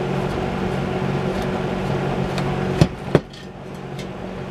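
A steady low hum that stops about three seconds in, at the moment of two sharp knocks in quick succession.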